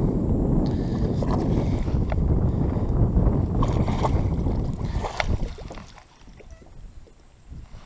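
Wind buffeting the microphone on an open fishing boat: an uneven low rumble with a few light clicks and knocks, dropping away about five and a half seconds in.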